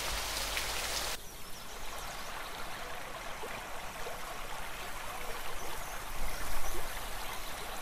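Shallow creek water running over rocks, a steady babbling. For about the first second a brighter, steady hiss cuts off suddenly, and about six and a half seconds in there is a brief louder swell.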